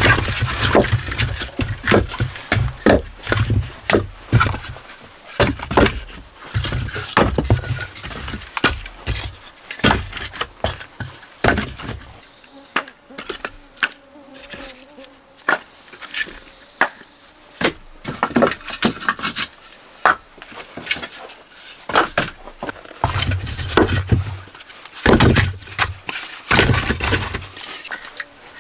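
Split firewood clacking and knocking as pieces are laid one by one onto a woodpile, a sharp wooden knock every second or so. An insect buzzes on and off over it, loudest near the start and again near the end.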